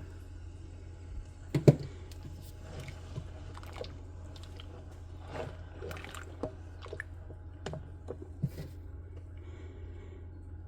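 A spoon stirring hot milk in the Instant Pot's stainless inner pot: wet sloshing with scattered knocks and scrapes against the pot, the loudest knock about a second and a half in, over a steady low hum.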